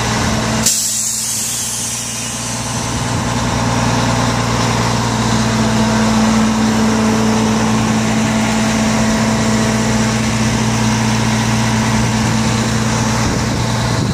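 The 1998 Mack RD688S crane truck's diesel engine idling steadily with a low hum. About a second in, a sudden hiss of released air starts and fades over a couple of seconds.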